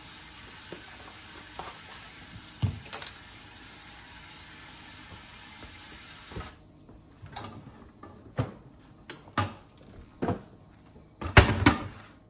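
Kitchen faucet running steadily into a stainless sink, shut off sharply about six seconds in. After that come scattered knocks and rustles from handling a box of plastic wrap, the loudest cluster near the end.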